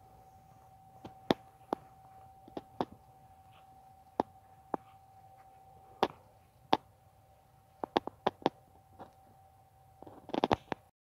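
Scattered sharp clicks and taps at irregular intervals, often in pairs, over a faint steady high hum. A quick rattling cluster of clicks comes near the end, then the sound cuts off.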